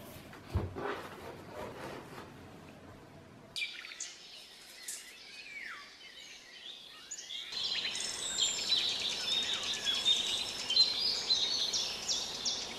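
A soft thump near the start, then birds chirping and singing: scattered calls from about three and a half seconds in, becoming a busy, louder chorus of overlapping chirps from about halfway through.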